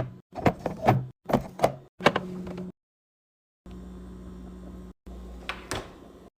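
A quick series of sharp knocks and clacks, about two a second, from kitchen items being handled. It cuts off abruptly and, after a short silence, gives way to a steady low hum with a couple of clacks near the end.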